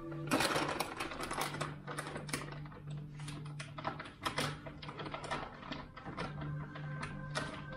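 A fast, irregular run of light clicks and taps, several a second, over a faint steady hum.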